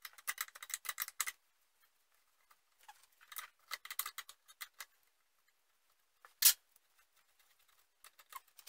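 Quick runs of metallic clicking from a ratcheting wrench turning the 12 mm brake line fittings off a master cylinder, stopping and starting, with one sharper click about six and a half seconds in.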